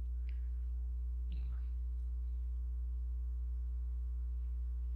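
Steady electrical mains hum with a stack of harmonics, constant throughout, with two faint brief sounds early on.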